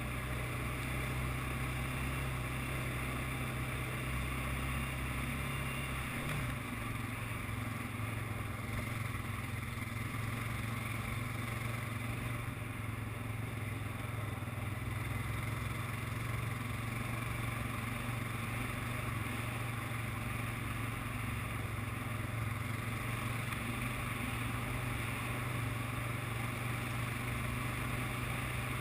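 ATV engine running steadily under way on a trail, its low note changing about six seconds in.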